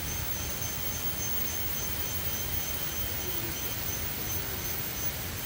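Tropical forest ambience: a steady hiss with a thin, high insect drone that pulses slightly.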